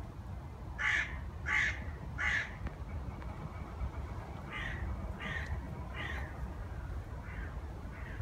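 A crow cawing: three loud harsh caws in quick succession about a second in, then four fainter caws in the second half.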